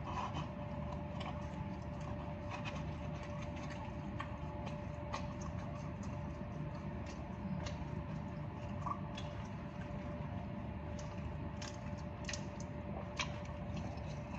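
Close-up eating sounds of a person chewing Burger King French fries: irregular soft clicks and smacks from the mouth, with a faint steady hum underneath.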